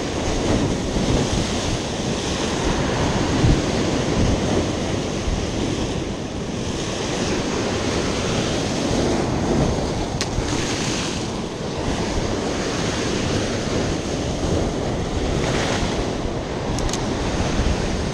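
Sea waves breaking and washing over shoreline rocks in a rough sea, coming in uneven surges, with wind buffeting the microphone.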